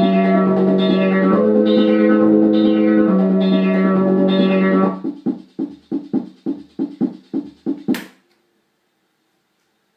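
Orla Carousel vintage electronic keyboard playing sustained chords over a held bass note, the upper notes re-struck with a plucked, guitar-like attack. About halfway through it changes to a run of short staccato notes, about four a second. Near the end comes a single sharp click.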